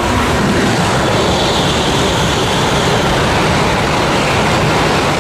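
High-speed train passing: a loud, steady rushing noise with a low rumble underneath.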